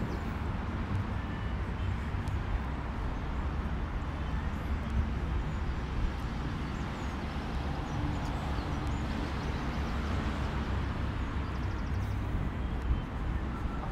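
Steady outdoor street ambience of a walk through a seaside neighbourhood: a continuous low rumble with a few faint high chirps.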